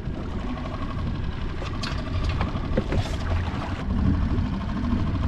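Steady wind rumble on the microphone and open-water noise around a fishing kayak, with a few light knocks of gear being handled.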